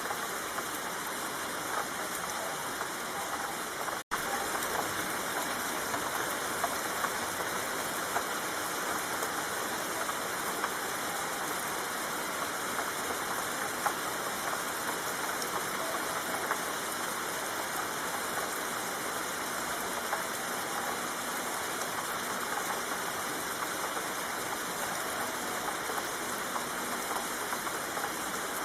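Steady rain falling, an even hiss of rain on a surface with scattered drop ticks. It cuts out for an instant about four seconds in, then carries on.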